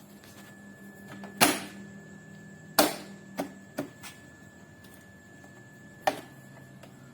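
Five separate sharp knocks at uneven intervals, the first two loudest, each ringing briefly, over a faint steady hum.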